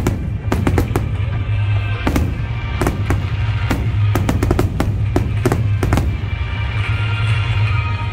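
Fireworks going off in irregular sharp bangs, over loud music with a steady low bass.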